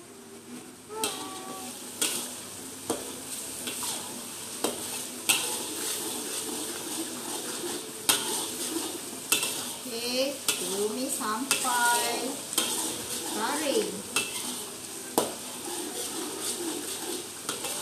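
Food sizzling in hot oil in an aluminium wok while a metal spatula stirs it, scraping the pan and clinking against it at irregular moments over the steady hiss of the frying.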